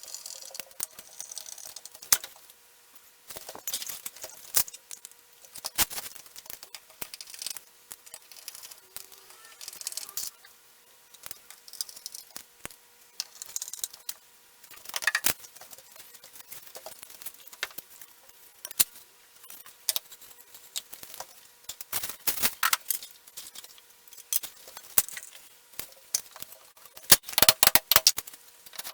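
Flat-pack desk assembly: irregular clicks, light clatter and rattling of small metal fittings and parts being handled, with a quick run of sharper clicks near the end.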